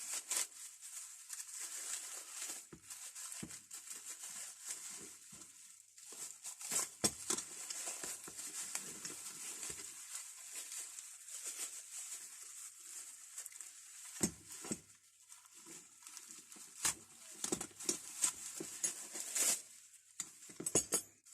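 Wrapping rustling and crinkling as a parcel of old spanners is unpacked, with scattered clicks and knocks from the tools being handled.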